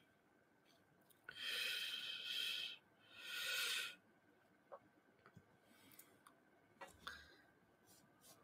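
A man blowing out two long breaths of cigarette smoke, the first about a second in and the second shortly after, followed by a few faint clicks.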